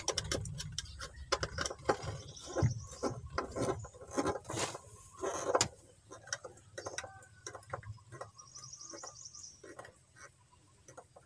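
Irregular small clicks and taps of a screwdriver and wires being worked at a car audio amplifier's terminal block, busiest in the first half and fainter afterwards.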